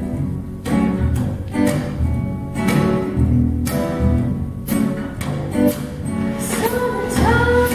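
Acoustic guitar strumming on the beat over upright bass notes, a bluegrass-style instrumental lead-in; a woman's voice comes in on a held note near the end.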